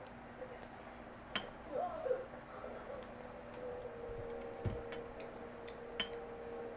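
A few scattered light clicks and clinks of an eating utensil against a dish while a baby eats. A soft steady hum comes in about halfway through.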